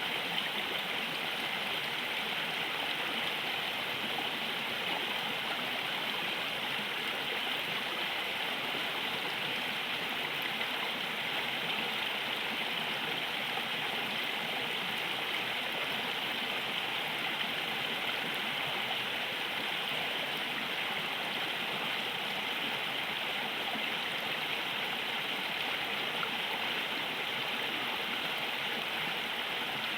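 A river flowing steadily over rocks, a continuous rushing and gurgling of water with its hiss strongest in the upper range.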